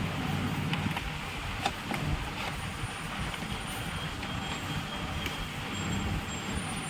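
Steady background rumble and hiss with a low hum, and a few light clicks in the first two or three seconds.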